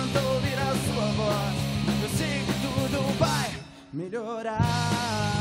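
Live rock band (two electric guitars, electric bass and drums) playing a song. About three and a half seconds in, the band nearly drops out for a moment while a single note slides down and then back up, and the full band comes back in just before the end.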